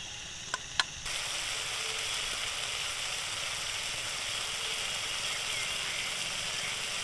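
Steady frying sizzle of spice paste cooking in oil in an iron wok over a wood fire, starting abruptly about a second in. Two light clicks come just before it.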